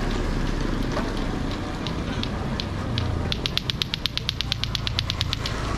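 Street ambience with a low traffic rumble and footsteps every half second or so. A little past halfway, a rapid mechanical ratchet-like clicking, about ten clicks a second, runs for about two seconds and then stops.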